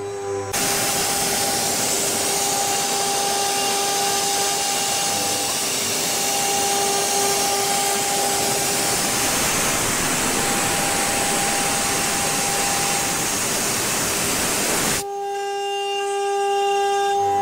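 CNC wood lathe's high-speed router spindle whining steadily while its engraving bit cuts scroll grooves into a turned wooden leg. A loud, even rushing noise from the cut starts about half a second in and stops abruptly about fifteen seconds in, leaving only the spindle's whine.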